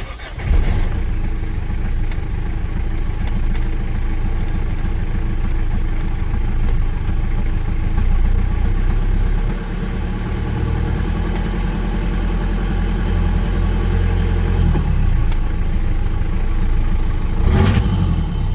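Mitsubishi Triton's 2.8 litre turbo-diesel engine starting abruptly and running, in a test of whether its low oil-pressure warning light will go out. A high whine rises about eight seconds in and falls away again a few seconds before a short knock near the end.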